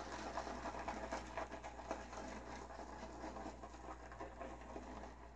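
Boar-bristle shaving brush being swirled through shaving lather in a small dish, making a faint, continuous crackling and scratching of bristles in foam as the lather is built up.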